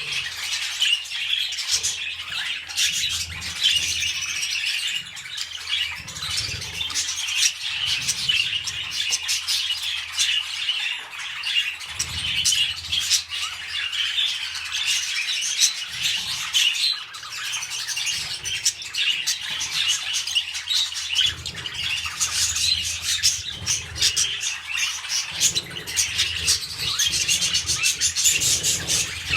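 Budgerigars chattering and warbling continuously, a dense run of quick chirps and squawks.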